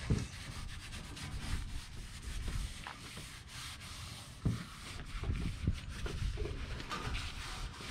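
Gloved hands rubbing a cloth over a car's interior rear trim panel, a steady scratchy scuffing with a few harder strokes about halfway through, over a low rumble of wind on the microphone.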